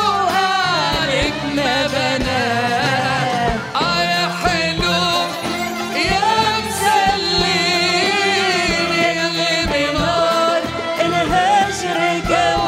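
A woman sings an Arabic song with a live band, her voice winding through ornamented runs over a steady drum beat.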